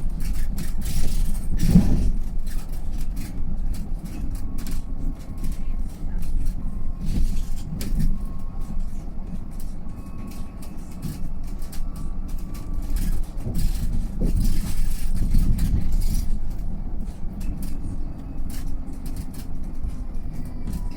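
Mercedes-Benz eCitaro G full-electric articulated bus on the move: a steady low road and body rumble with many small rattles and knocks, and a faint thin whine above it.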